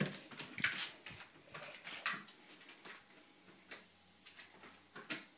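Scattered light ticks and knocks of a puppy's paws and claws on a treadmill belt, mixed with phone-handling bumps in the first couple of seconds.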